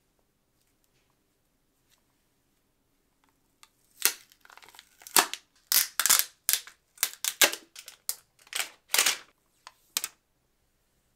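Plastic packaging being handled and unwrapped: a quick run of short crinkles, rustles and tearing sounds that starts about four seconds in and stops near the end.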